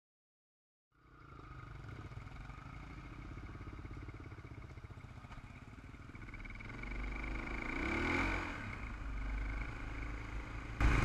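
Dirt bike engine running at riding speed, heard from a helmet-mounted camera. It starts about a second in, and the engine revs up and back down about eight seconds in.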